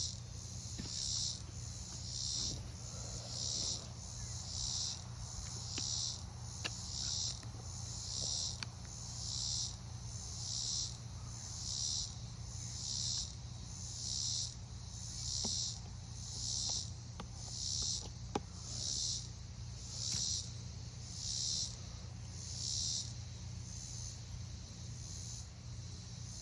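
An insect calling in regular high-pitched pulses, about one a second, over a steady low hum, with a few faint clicks.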